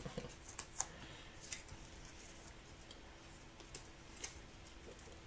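Trading cards and their plastic holders being handled: faint, scattered light clicks and taps over a faint steady hum.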